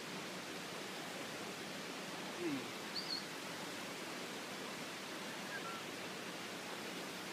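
Steady outdoor background hiss. About two and a half seconds in there is a short, low falling sound, followed just after by two brief high chirps.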